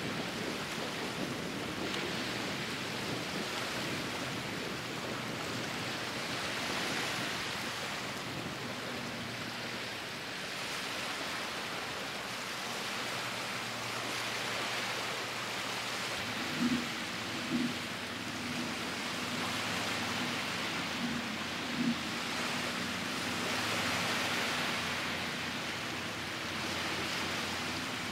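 Steady rushing outdoor noise of wind and water along an open beach at low tide, with a faint steady hum joining about a third of the way in and a few short, slightly louder sounds a little past the middle.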